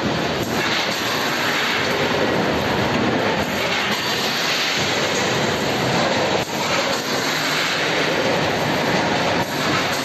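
Snack packaging machine running: a steady, dense mechanical noise with faint clicks about every three seconds.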